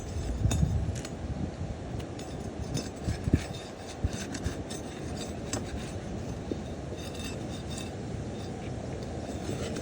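Scattered clinks, taps and scrapes of hand tools working on asphalt roof shingles, over a steady low background noise.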